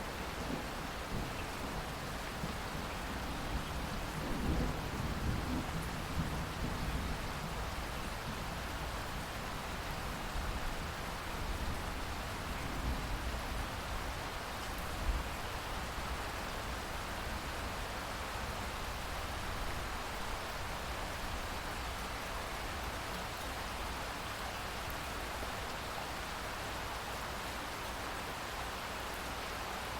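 Heavy rain falling steadily, with rolls of thunder rumbling low in the first half and one sharper thunderclap about halfway through.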